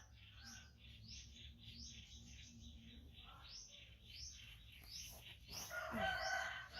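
Small bird chirping over and over, a quick rising chirp about twice a second, with a louder, longer call about six seconds in.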